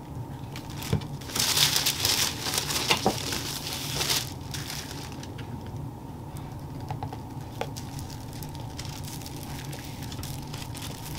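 Tissue pattern paper and tracing paper rustling and crinkling as the sheets are handled and shifted, loudest from about one and a half to four seconds in, then dying down to a few faint scratches of a marker tracing the line, over a steady low hum.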